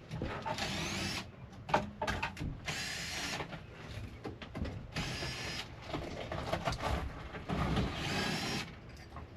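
Power drill/driver running in four short bursts of just under a second each, its whine rising as the motor spins up each time, with knocks and clatter of handling in between.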